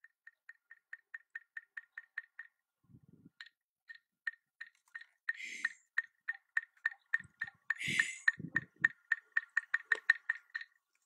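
A long run of sharp, ringing clicks at one pitch, starting slowly and speeding up to about five a second, then going on less evenly. Two breathy rushes of air come about halfway and again a few seconds later, with some low, thudding sounds among them.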